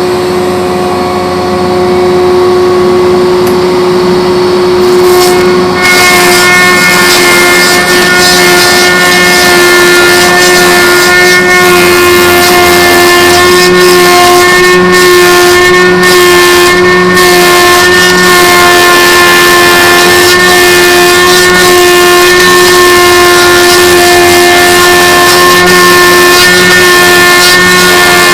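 Homemade log-rounding machine running with a steady motor whine; about six seconds in, a louder, harsher cutting noise joins as the cutter works the log, and it carries on steadily.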